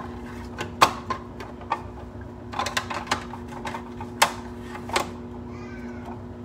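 Irregular sharp clicks and taps of a cucumber and kitchen utensils being handled, several in quick clusters, stopping about five seconds in, over a steady low hum.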